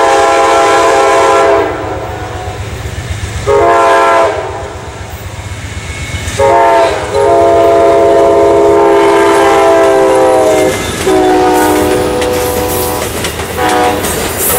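Amtrak GE P42DC diesel locomotive sounding its multi-tone air horn in a series of blasts: a long one ending about a second and a half in, a short one about 4 s in, a short and then a long one from about 6.5 to 10.5 s, then two more longer blasts. Under the horn the train rumbles steadily, and wheel clicks over the rail joints come in near the end as the Superliner cars pass close by.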